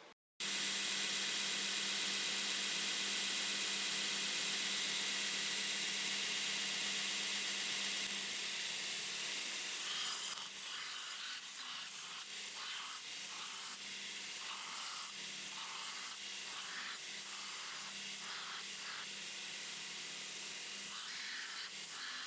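Belt grinder running with a forged steel knife blade ground against the belt: a steady hiss for about the first ten seconds, then the grinding comes and goes in short strokes.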